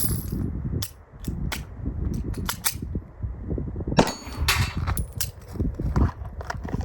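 Pistol shots fired at irregular intervals, one after another, with the loudest about four seconds in.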